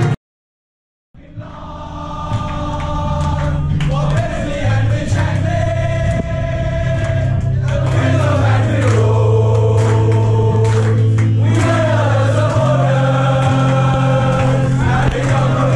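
A room full of football supporters singing a chant together in loud unison, with long held notes. It starts about a second in, after a brief dropout, and swells up to full volume.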